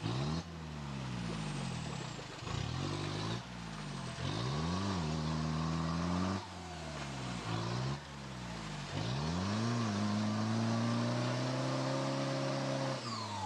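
A soft-top 4x4 SUV's engine revving up and down again and again as the vehicle churns forward through deep mud, then held at high revs for a few seconds near the end.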